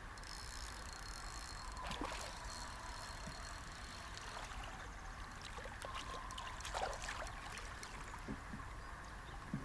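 River water trickling over a riffle, with a few small splashes and clicks about two seconds in and again near seven seconds.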